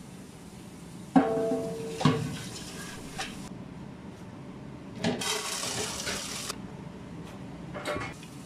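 A smaller metal pot set down inside a large pot: two clanks with a short metallic ring. About five seconds in comes the rush of dry uncooked rice poured into it, lasting about a second and a half, with a brief last pour near the end.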